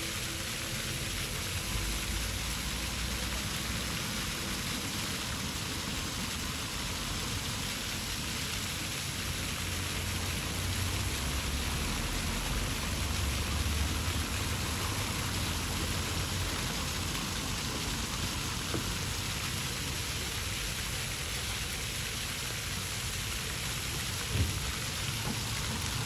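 Ground-level plaza fountain jets spraying and splashing onto wet cobblestones: a steady hiss of falling water. A low rumble swells in the middle, and there is one sharp click near the end.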